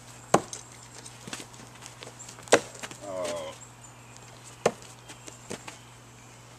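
Thrown screwdrivers striking a wooden log-round target: three sharp thunks about two seconds apart, with a few lighter knocks between.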